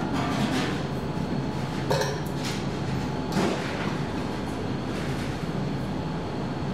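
Bar stools being lifted down off a table and set on the floor, giving a few knocks and scrapes, over a steady low hum.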